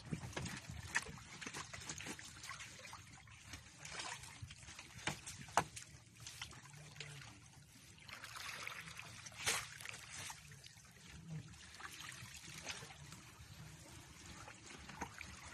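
Water trickling and dripping off a fishing net as it is worked out of the river at the boat's side, with irregular small splashes and knocks, one sharper about halfway through.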